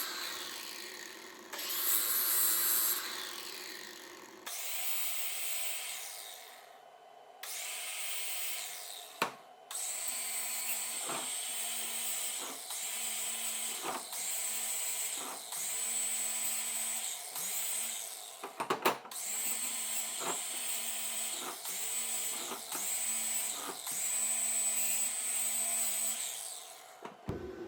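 A handheld power tool running in a string of short bursts of about a second each, started and stopped again and again with a steady whine, after a few seconds of louder hissing at the start.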